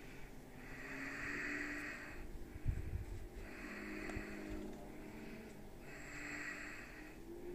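A person breathing close to the microphone, three slow breaths in a row, with a single soft knock of handling noise between the first and second breath.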